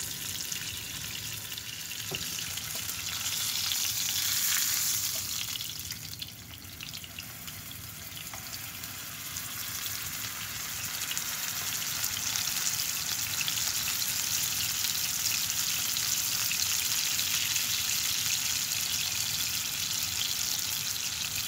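Prosciutto-wrapped cod sizzling in olive oil in a frying pan: a steady frying hiss that swells about four seconds in, dips briefly, then holds steady.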